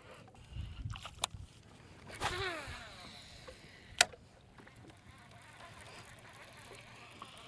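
A cast with a fishing reel: the spool whirs with a falling pitch as it spins down, and a single sharp click comes about four seconds in, with a few lighter clicks earlier.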